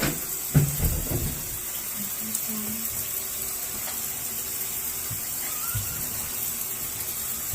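Water running steadily from a bathtub-shower faucet whose valve has just had its rubber seal replaced, with a few knocks in the first second.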